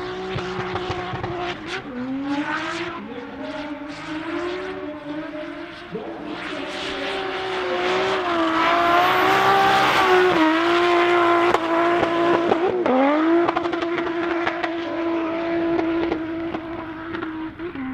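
Turbocharged 2JZ inline-six engine of a Toyota GT86 drift car held high in the revs through a long drift, its tyres spinning and smoking on the tarmac. The engine note holds steady with brief dips about 2, 6 and 13 seconds in, and grows loudest midway as the car comes close.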